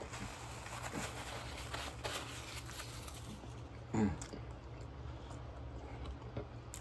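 Paper napkin rustling against the mouth and quiet eating sounds, with a short closed-mouth 'mm' about four seconds in, over a low steady hum.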